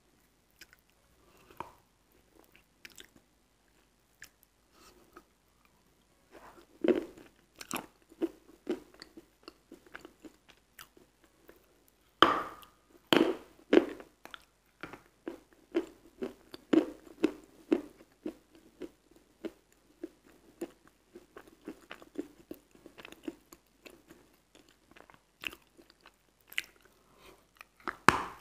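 Close-miked biting and chewing of a slab of Aktobe edible chalk coated in wet chalk paste: wet crunches. It is almost quiet with a few small clicks at first, then steady crunchy chewing from about six seconds in, with the loudest bite near the middle.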